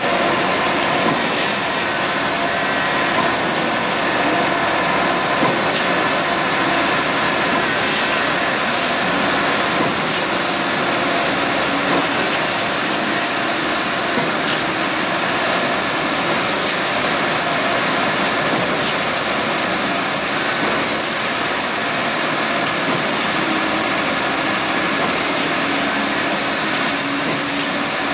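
Heavy construction machinery engines running steadily during a mass concrete pour, a continuous even mechanical noise with a faint whine and no breaks.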